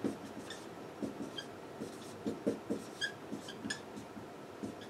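Dry-erase marker writing on a whiteboard: a quick series of short strokes, several of them squeaking.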